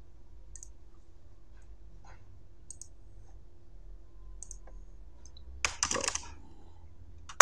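Computer mouse clicks, a few faint single clicks spaced out, then a quick run of keyboard keystrokes about three quarters of the way through as a value is typed in, over a steady faint hum.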